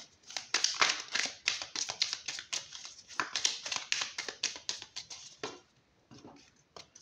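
A deck of oracle cards shuffled by hand: a quick, uneven run of card flicks and slaps that stops about five and a half seconds in, leaving a few faint clicks.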